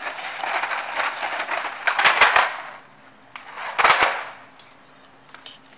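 Rustling and crackling handling noise, with two loud crackly bursts about two and four seconds in.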